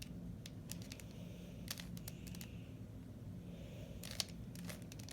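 Plastic 3x3 Rubik's Cube being turned by hand: scattered quick clicks as its layers are twisted, in small bursts about two seconds in and again about four seconds in.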